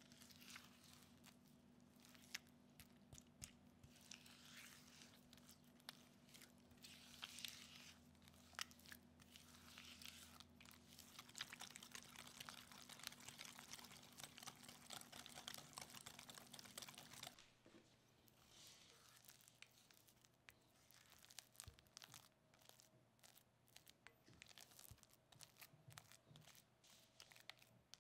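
Egg being beaten into creamed butter and sugar in a glass bowl: a dense run of soft wet clicks and scrapes, busiest around the middle while a whisk beats fast. Toward the end it thins to sparse ticks as a silicone spatula folds the mixture.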